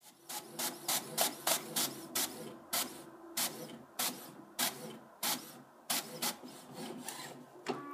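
Desktop inkjet printer printing a page: the print head shuttles back and forth in short sharp strokes, about two a second, over the steady hum of the paper feed, while the sheet advances out into the tray.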